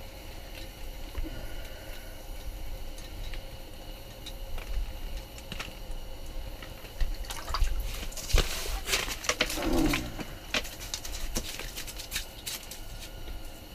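Water splashing and dripping as a fish is pulled up through an ice-fishing hole, amid clicks and knocks of handling the rod and line, busiest in the second half.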